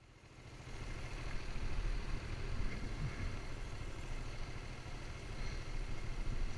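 Hyosung cruiser motorcycle engine idling, a steady low rumble that fades in over the first second.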